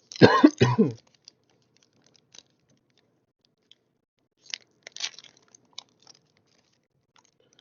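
A short vocal groan, then the foil wrapper of a trading-card booster pack crinkling and tearing in a few brief scattered bursts about halfway through.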